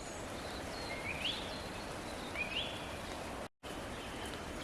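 Forest ambience: a steady faint hiss with a few soft bird calls, short rising chirps about a second in and again about halfway through. The sound cuts out completely for an instant near the end.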